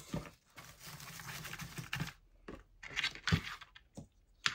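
Christmas decorations being handled and placed by hand: rustling and crinkling for the first couple of seconds, then a few light knocks.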